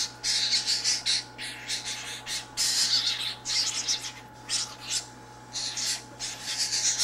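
Hand-reared toucan chicks begging for food with rapid, harsh, hissing rasps, a run of short calls broken by a brief lull about five seconds in.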